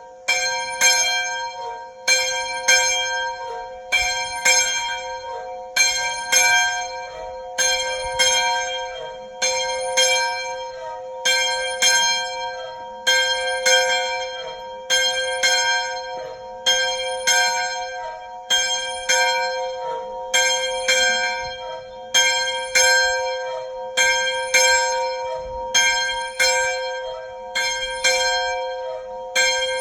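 A single church bell ringing, struck about once a second at the same pitch, each stroke ringing on into the next.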